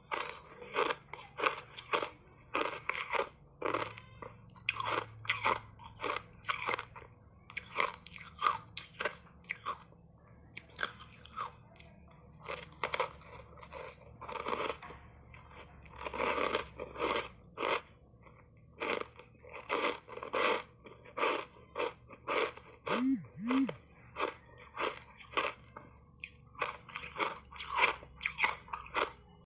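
Ice coated in matcha green tea powder being bitten and chewed: a steady run of sharp crunches, about two or three a second.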